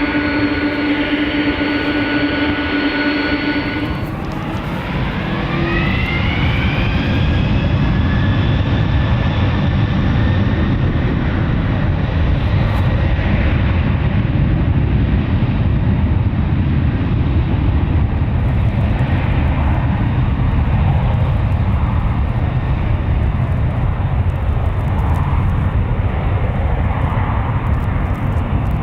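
Boeing 747 jet engines whining steadily at low power, then spooling up about four seconds in. Several tones rise together into the loud, steady noise of takeoff thrust.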